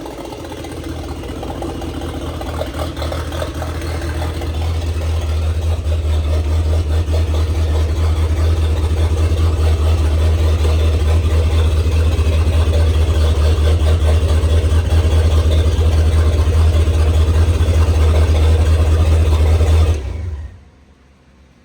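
2.3 L turbocharged four-cylinder engine of a 1927 Ford Roadster hot rod running with a steady low drone, on a freshly repaired fuel system and without leaks. It grows louder over the first several seconds, holds steady, and then cuts off suddenly near the end.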